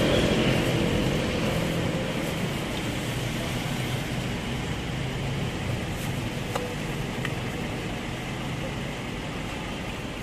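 Street traffic: a motor vehicle passes close, its engine rumble fading over the first couple of seconds, then a steady traffic hum with murmured voices and a couple of faint clicks about six seconds in.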